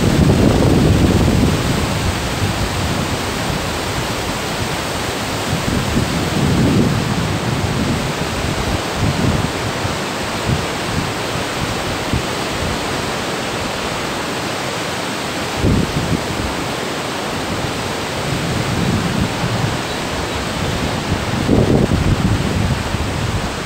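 Steady rushing of a fast mountain river in white water, with gusts of wind rumbling on the microphone every few seconds.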